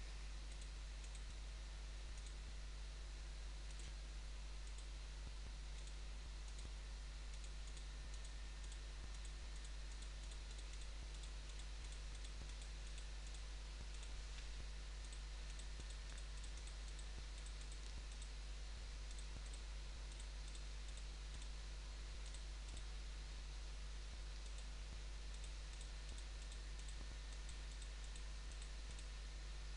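Many faint, irregular computer mouse clicks as pen-tool mask points are placed one by one, over a steady low electrical hum and hiss from the microphone.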